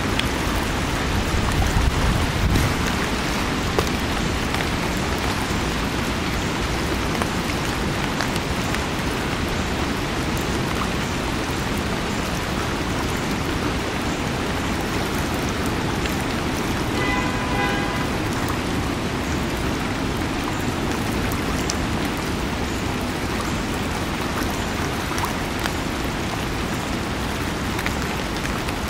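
Flood-swollen creek running high and fast: a steady rushing of water. Wind buffets the microphone with a low rumble in the first couple of seconds.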